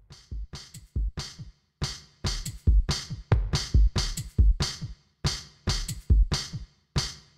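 Electronic background music with a drum-machine beat: deep kick hits and crisp snare-like hits about two to three a second, broken by a few short pauses.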